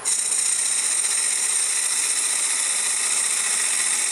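Cutter of a sphere-turning jig biting into a sumac blank spinning on a wood lathe: a sudden, loud, steady high hiss of the tool cutting the wood.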